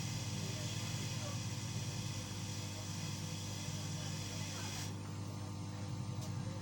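Hot air rework gun blowing with a steady hiss while desoldering a component from a laptop motherboard; it cuts off about five seconds in. A low steady hum runs underneath.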